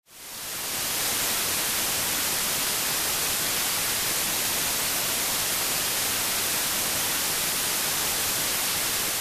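Television static: a steady hiss of white noise that fades in over about the first second and begins to fade near the end.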